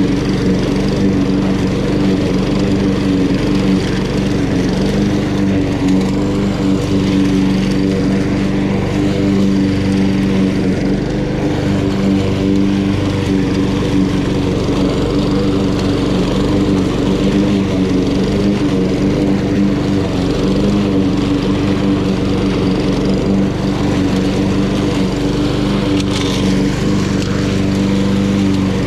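Honda HRN216 walk-behind lawn mower's GCV170 single-cylinder engine running steadily while cutting grass.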